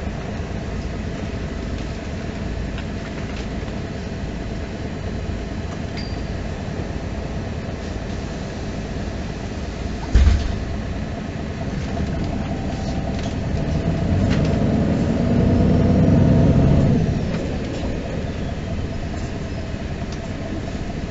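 MAN NG 313 articulated city bus running, heard from inside the passenger cabin: steady drivetrain and road noise with a single sharp thump about halfway through. The engine then swells louder for a few seconds as the bus pulls away or speeds up, and settles back near the end.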